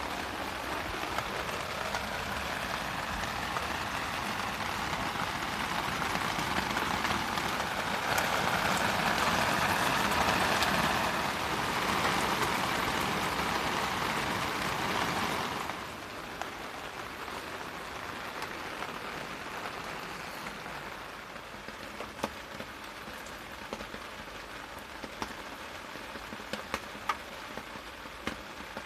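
Heavy rain falling as a steady hiss that builds toward the middle, then turns abruptly quieter about sixteen seconds in. After that the lighter rain is dotted with separate drops ticking.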